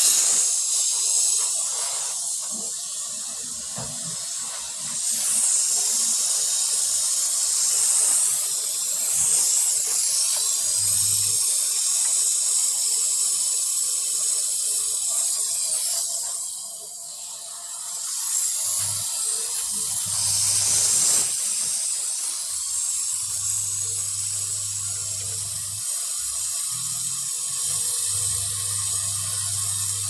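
Gas brazing torch burning with a steady high hiss, which grows louder about five seconds in and dips briefly around seventeen seconds.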